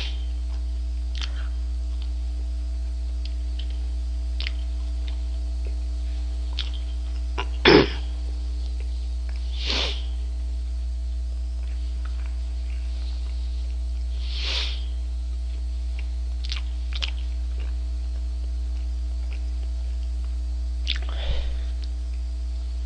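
Steady low electrical mains hum with a few short mouth and breath noises over it: one sharp smack or click about eight seconds in, the loudest sound, and a couple of brief sniff-like breaths a little later.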